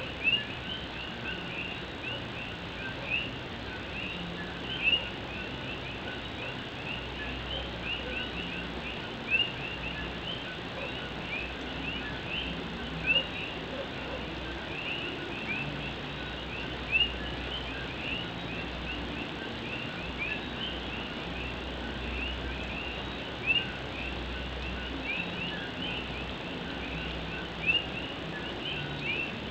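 Chorus of Puerto Rican coquí frogs: many overlapping short, high chirping calls over a steady background hiss, with a louder sharp note standing out about every four seconds.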